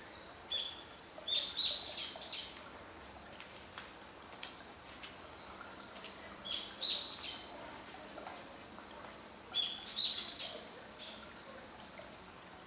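A songbird singing a short phrase of notes that step upward in pitch, three times, about four seconds apart, over a steady high hiss.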